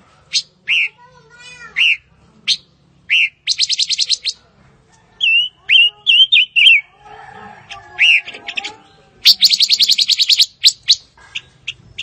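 Silver-eared mesia singing: short, sharp falling whistled notes, a quick warbling phrase in the middle, and two fast rattling trills, one about three and a half seconds in and a longer one just past the three-quarter mark.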